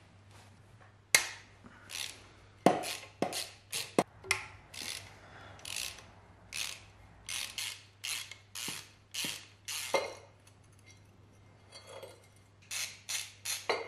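Hand ratchet with a socket and extension backing out an engine-mount bolt: short bursts of ratchet clicks, roughly two strokes a second, with a short pause about ten seconds in before a few more strokes.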